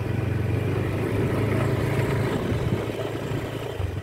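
Motorbike engine running steadily while being ridden, its hum changing to an even pulsing near the end.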